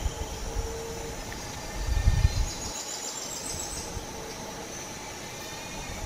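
Outdoor wetland ambience: an insect trills in rapid, even pulses for about a second and a half near the middle, over a steady background hiss and hum, with a brief low rumble about two seconds in.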